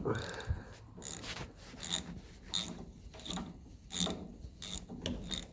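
Hand ratchet with a half-inch socket undoing a nut, clicking on each return stroke, about three strokes every two seconds.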